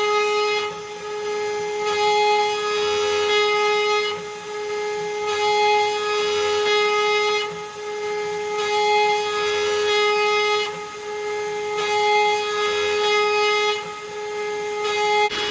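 Genmitsu 3030-ProVer Max CNC router spindle whining steadily while its end mill cuts aluminum. The cutting noise swells and eases about every two seconds as the tool passes through the metal.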